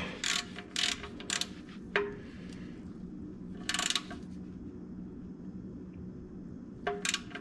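Scattered light metallic clicks and taps of hand tools working on the car's oil filter housing, with a short rustling burst about halfway and a steady low hum underneath.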